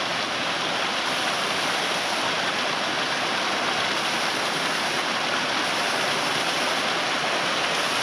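Small waterfalls spilling down over rocks: a steady rush of falling water.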